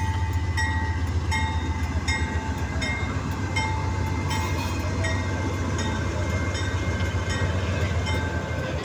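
Diesel freight locomotives passing, their engines running with a deep steady hum, while a bell rings about once every three quarters of a second, fading after about five seconds.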